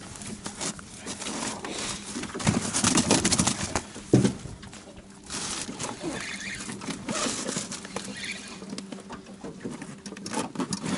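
Knocks, clicks and rustling from handling fishing tackle and a spinning rod and reel in an aluminium boat, over wind and choppy water slapping the hull.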